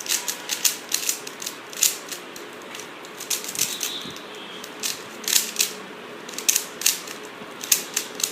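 A 3x3 Rubik's Cube being scrambled by hand: rapid, irregular clicking and clacking of the plastic layers turning, in quick flurries with short pauses between them.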